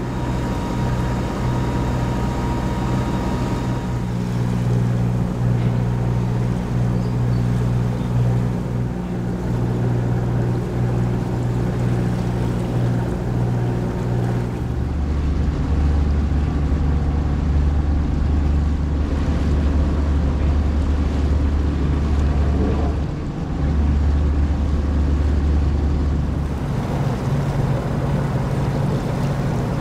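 A sailboat's auxiliary engine running steadily while motoring. For about ten seconds in the middle a deeper low rumble joins it, breaking off briefly once.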